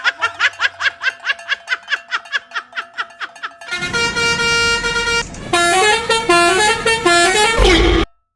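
Multi-tone Indonesian bus telolet horn: about six quick rising chirps a second for the first three and a half seconds, then a held chord, then a short stepped tune of horn notes that cuts off suddenly near the end.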